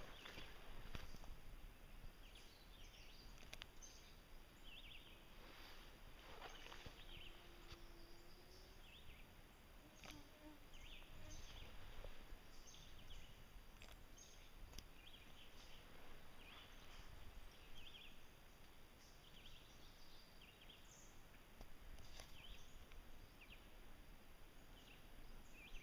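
Faint footsteps and brush swishing as someone walks through forest undergrowth, with many short high chirps scattered throughout.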